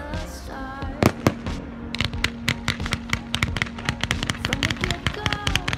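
Fireworks going off: a couple of sharp bangs about a second in, then dense, rapid crackling from crackle-effect shells from about two seconds in.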